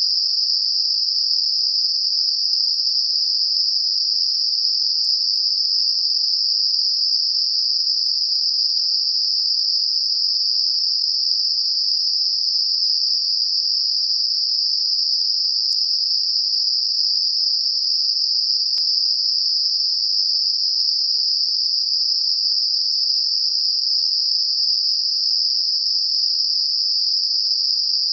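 Synthetic 5 kHz Gaussian narrow-band noise, a tinnitus masker: a constant high-pitched hiss with nothing deep in it, steady in level throughout.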